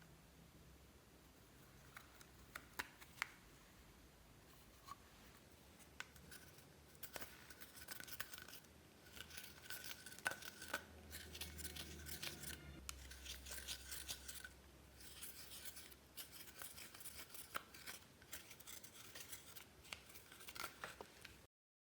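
Faint sticky clicks, crackles and scratchy rubbing of slime being mixed and worked by hand, sparse at first and busier from about seven seconds in.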